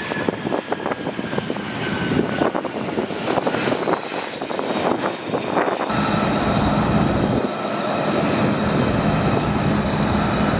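F-35 Lightning II fighter's jet engine at high power on takeoff, a rough crackling rumble under a slowly falling whine. About six seconds in it cuts sharply to a steadier jet whine with a low hum, from an F/A-18 Hornet's engines as it taxis.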